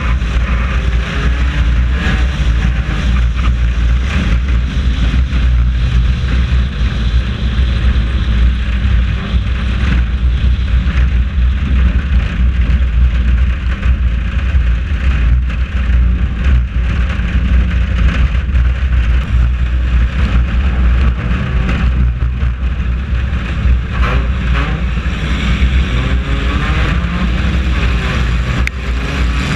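Four-cylinder race car engine heard from inside the car at racing speed, its pitch rising and falling as the driver gets on and off the throttle, with wind and road noise throughout.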